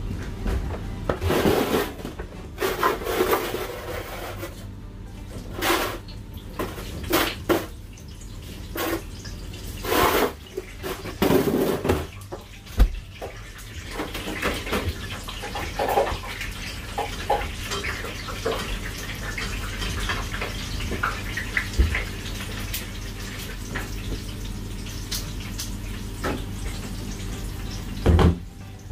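Commercial kitchen work: scattered knocks and clatter of utensils, metal trays and containers, the loudest just before the end, over a steady low hum. Through the middle stretch there is a soft hiss.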